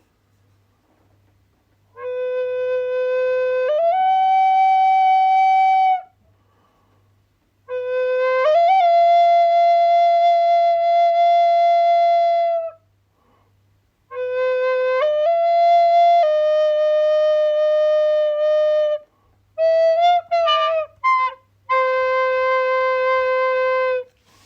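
A flute-like wind instrument playing slow phrases of long held notes. Most phrases start on a low note and step or slide up to a higher one. Near the end come a few quick short notes, then one last long low note.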